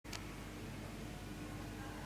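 Faint steady room tone: background hiss with a low hum, and a brief click right at the start.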